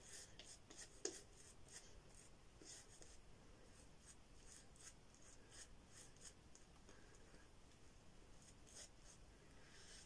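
Faint, quick swishing of a boar-bristle shaving brush (Omega 10048) working shaving-cream lather over a bearded face, in short irregular strokes about two a second, with one sharper tick about a second in.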